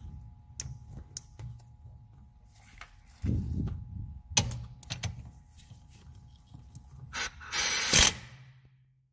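Socket tool working the front shock's size-18 bolt: scattered ratchet clicks and metal clinks, a heavier knock about three seconds in, and a loud rushing burst lasting about a second near the end.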